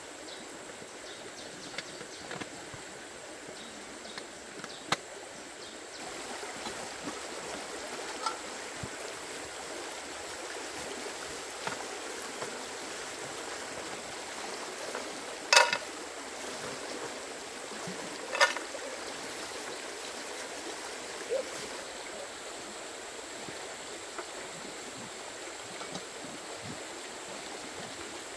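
Steady rush of running water that gets a little louder about six seconds in, with a few sharp knocks, two louder ones about three seconds apart midway.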